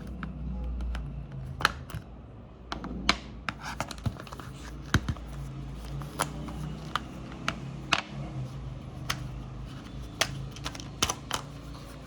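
Irregular sharp clicks and taps of hard plastic being handled: battery cells being pulled out of a bubble fan toy's plastic housing and its panel being taken off.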